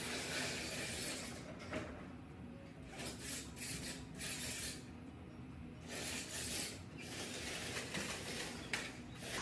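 Vertical window blinds being drawn open: the slats rub and clatter as they slide along their track, in several separate pulls.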